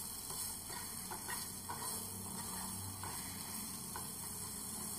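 Wooden spatula stirring green peas and a dry spice mix in a nonstick frying pan: faint, scattered taps and scrapes over a steady low hum.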